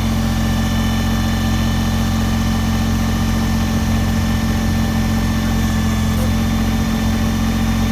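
Kubota BX23S compact tractor's three-cylinder diesel engine idling steadily.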